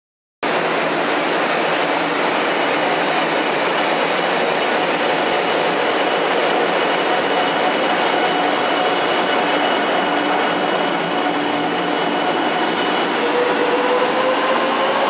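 JR West 500 series Shinkansen pulling along the platform, a steady loud rush of running noise with a faint electric motor whine. Near the end the whine starts to climb in pitch as the train gathers speed.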